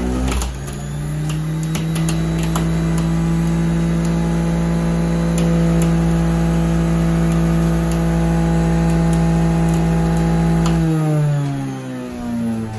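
Mueller centrifugal juicer's motor running with a steady whir as greens are pushed down the feed chute, with a few faint ticks. Near the end the pitch slides down, then climbs back up.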